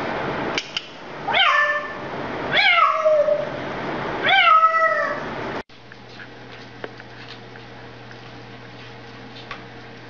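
African grey parrot imitating a cat: three loud meows about a second and a half apart, each sliding down in pitch and then held. Then a faint steady hum with a few light taps.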